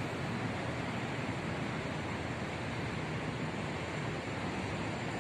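Steady wind rushing over the phone's microphone, an even noise without distinct events.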